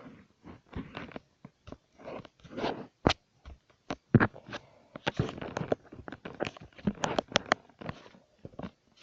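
A cat crunching and chewing its food: a quick, irregular run of sharp crunches and clicks.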